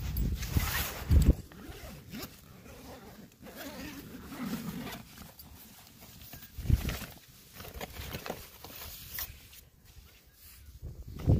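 Insulated food-delivery bag being unzipped and handled, its fabric rustling, with a few dull knocks as a pizza box inside is moved.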